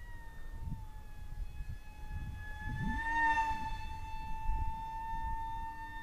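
Radiolink SU27 RC plane's electric motor whining steadily in flight. The whine dips a little in pitch, then rises and grows louder about three seconds in as the plane passes close. Low wind rumble on the microphone underneath.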